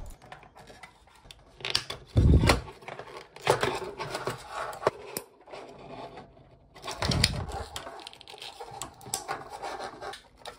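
Small clicks, creaks and scrapes of thin plastic being pried and bent off the front frame of Viture Pro AR glasses by hand. Two dull thumps stand out, about two seconds in and again about seven seconds in.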